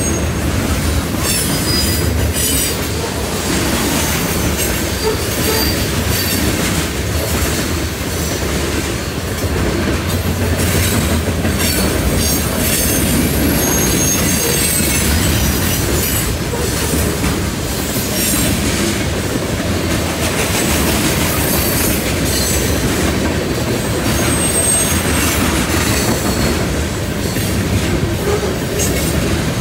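Freight cars of a CN train rolling past: a steady, loud rumble and clatter of steel wheels on rail, with short high wheel squeals now and then as the cars head into a curve.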